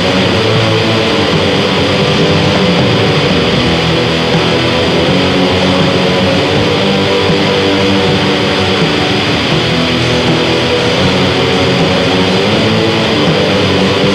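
Raw black metal: heavily distorted electric guitar chords in a dense, unbroken, lo-fi wall of sound.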